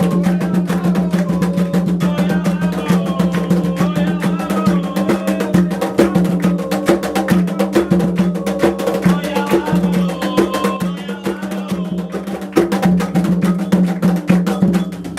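Candomblé music: atabaque hand drums and other percussion playing a quick, dense rhythm, with voices singing a melody over it.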